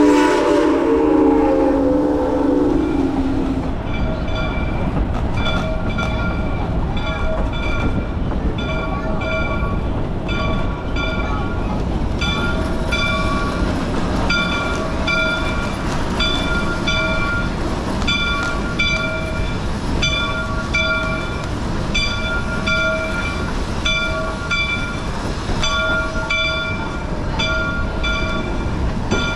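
Steam locomotive whistle blowing one long note that ends about three seconds in. Then the locomotive's bell rings steadily, about two strokes a second, over a low rumble.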